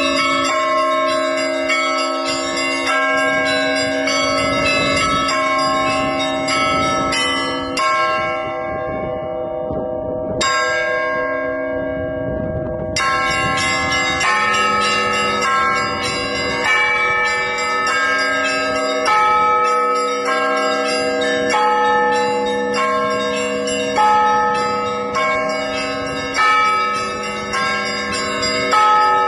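Orthodox church bell ringing (zvon): several bells of different sizes struck over and over in a busy rhythmic peal. The small high bells pause for a few seconds near the middle while the larger bells keep ringing, then all come back in.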